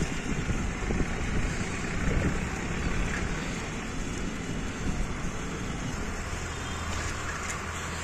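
Wind noise on the microphone over steady road traffic noise, with no single clear event.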